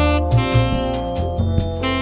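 Background jazz music with a saxophone melody over bass notes and a steady beat.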